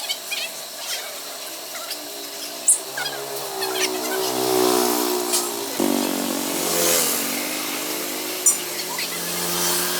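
A small engine running steadily, its pitch shifting about six seconds in, with a few sharp clicks.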